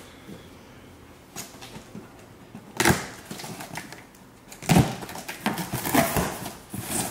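Cardboard shipping box being opened by hand: a sharp knock about three seconds in, then the packing tape slit with a blade and the flaps pulled back, with loud, irregular cardboard rustling and scraping in the last couple of seconds.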